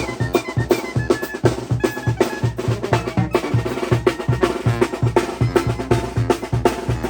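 Mexican regional wind band (banda) playing a lively tune: a steady, quick drum beat with bass drum and snare under a pitched melody line.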